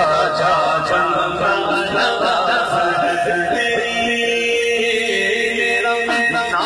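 A man singing a naat, an Urdu devotional song in praise of the Prophet Muhammad, into a microphone. His melismatic voice bends and holds long notes.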